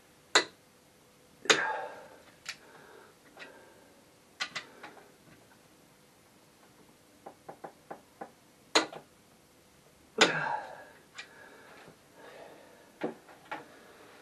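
Metal tools and engine parts clinking and knocking as they are handled. There are scattered sharp clicks, two louder knocks that ring briefly, and a quick run of four small clicks about halfway through.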